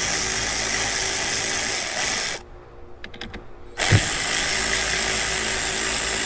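Power ratchet spinning off 13 mm nuts from a truck's battery terminal bracket, running in two spells. It runs, stops a little over two seconds in, gives a few light clicks, then starts again about four seconds in and keeps running.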